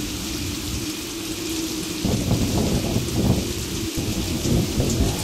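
Thunder rumbling over steady rain hiss. The rumble eases for the first two seconds, then rolls in again and continues.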